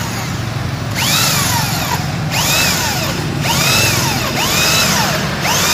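Makita M8100 corded hammer drill boring through a steel purlin with a twist bit. The motor whine and cutting noise run steadily, the whine rising and falling in pitch about once a second.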